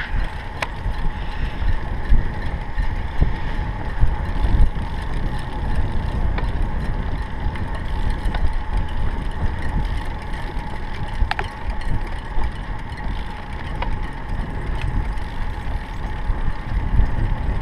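Wind rumbling on the microphone of a camera moving along with a bicycle, with tyre noise on asphalt. A faint steady whine runs under it, and a few small clicks sound about a second in, near the middle and near the end.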